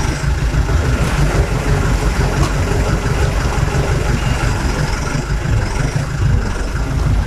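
Twin engines of a Jeanneau NC 37 motor yacht running at low speed as a steady low rumble, while the boat manoeuvres slowly out of its berth.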